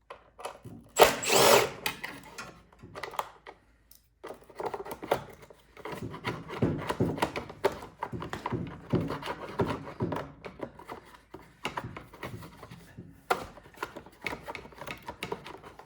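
A short run of a power driver on the gas tank's small 8 mm bolts about a second in. Then a long stretch of irregular clicking, scraping and knocking as bolts and plastic parts are worked loose from the snowblower's gas tank.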